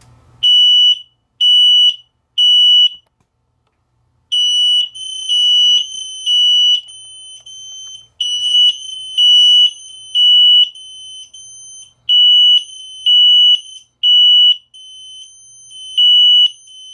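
XSENSE photoelectric smoke alarm sounding in response to smoke: loud, high-pitched beeps in the standard pattern of three beeps and a pause. About four seconds in, a second, slightly higher-pitched alarm joins in out of step, so the beeps overlap: the wirelessly interlinked alarms going off together.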